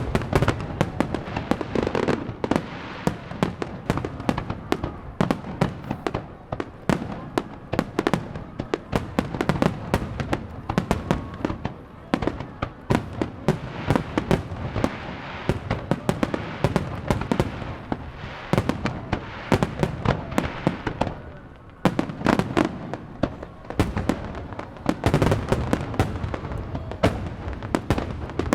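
Fireworks display: a dense, unbroken string of aerial shell bursts, with many overlapping bangs every second.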